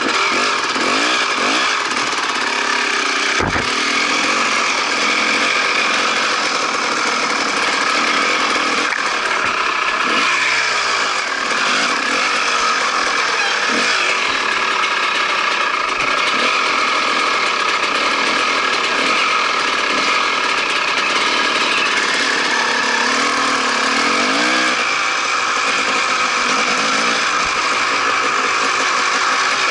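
Dirt bike engine running while the bike is ridden along a trail, the revs rising and falling a few times as the throttle changes.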